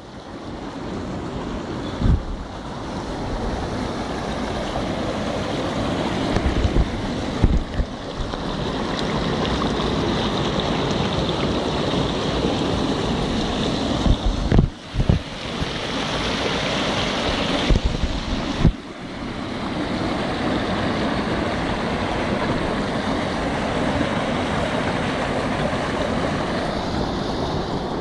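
A shallow river rushing steadily over rocks and a small rock ledge. Low thumps hit the microphone a few times.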